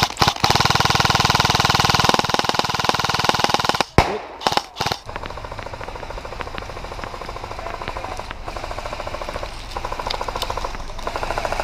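Airsoft electric light machine gun (Krytac LMG) firing on full auto as a rapid rattle. A long burst of about three and a half seconds is followed by a short break and two brief bursts, then quieter continuous automatic fire for the rest.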